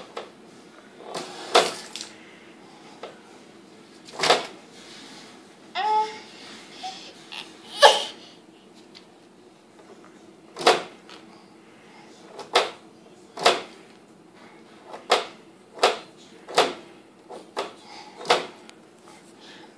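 Refrigerator door knocking and thudding about a dozen times as it is pulled open and pushed shut again and again, with a short burst of babble about six seconds in.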